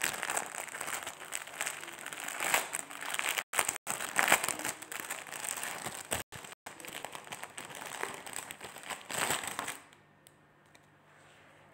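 Plastic crinkling and rustling, handled close to the microphone; it stops about ten seconds in. The sound cuts out for a split second a few times.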